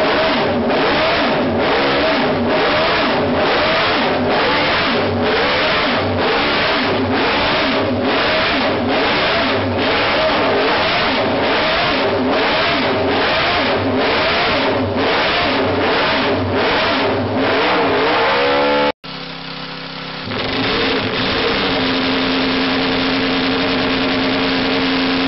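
Homebuilt multi-cylinder motorcycle engine running loud, its sound pulsing in an even rhythm of about one and a half beats a second with a wavering pitch. After a sudden cut near the end, another engine runs at a steady pitch.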